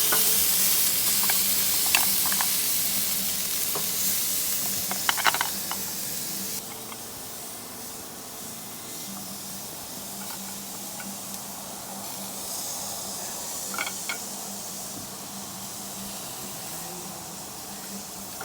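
Oysters in the half shell sizzling on a grill, an even hiss with a few light clicks. The sizzle drops to a quieter level about six and a half seconds in.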